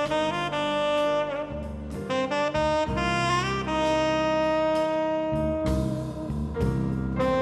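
Live jazz: a saxophone plays a melodic line over the band's accompaniment, holding one long note in the middle.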